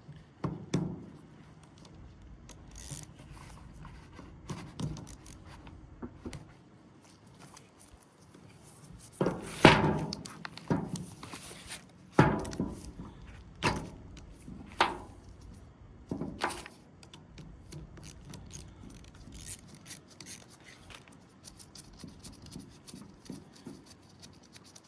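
Hand tools and metal parts clicking and knocking while the 13 mm nut on a starter motor's solenoid electrical connection is undone, with rubbing in between. The loudest knocks come in a cluster in the middle.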